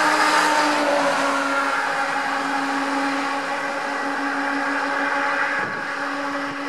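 Heavy flatbed tow truck passing close by and pulling away, its engine and tyre noise loudest at the start and slowly fading, with a steady droning tone underneath.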